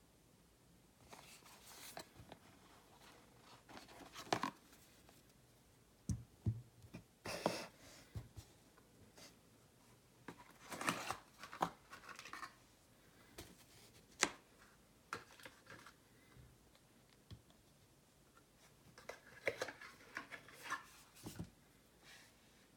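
Handling noises as a smartphone and its plastic accessories are unboxed on a table: short rustles and scrapes, a few sharp clicks and a couple of dull knocks, coming in scattered bunches with quiet gaps between them.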